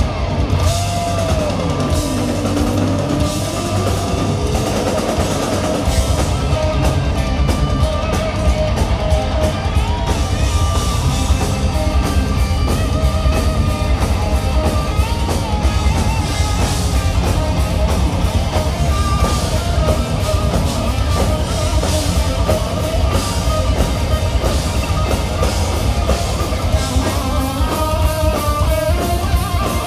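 Heavy metal band playing live with no singing: distorted electric guitars over bass guitar and drum kit, heard from the crowd. Guitar notes bend and slide in the first few seconds, and the drumming turns dense and driving from about six seconds in.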